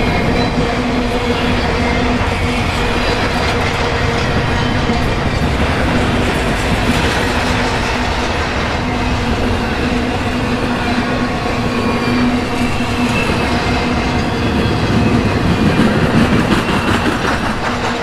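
Double-stack intermodal freight cars rolling past at trackside, steel wheels clattering on the rails over a steady low hum. The clatter swells a little near the end.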